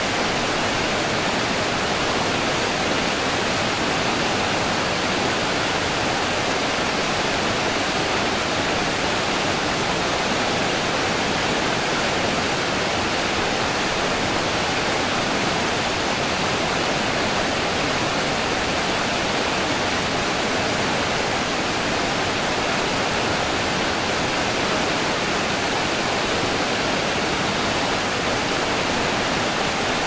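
Waterfall pouring into a rock pool, a steady rush of falling water together with the stream running over stones below it.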